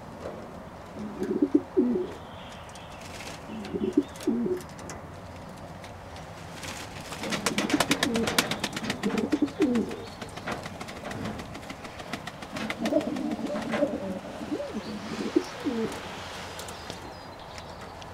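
Fantail doves cooing in repeated low bouts, with a quick run of sharp clicks in the middle.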